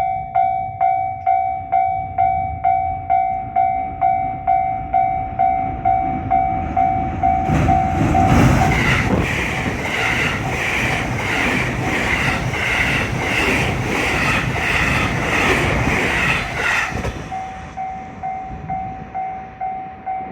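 Japanese level-crossing warning bell ringing at about two strikes a second. About seven seconds in, a JR West Special Rapid train passes at speed: a 225-series set coupled to a 223-series set. It is loud for about nine seconds and drowns the bell. The bell is heard again once the train has passed, and it stops at the very end.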